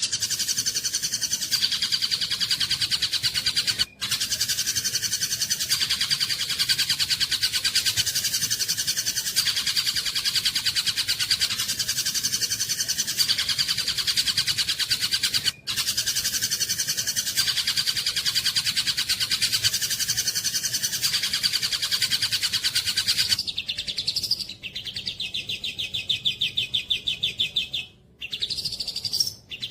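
Long-tailed shrike (cendet) singing a dense, rapid chattering song, twice cut off for an instant. Later it changes to a higher, evenly pulsing trill broken by short pauses.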